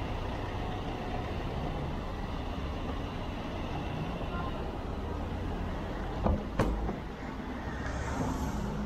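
Steady low rumble of road and wind noise from a bicycle riding in town traffic close behind a car. Two sharp knocks come in quick succession about two-thirds of the way through.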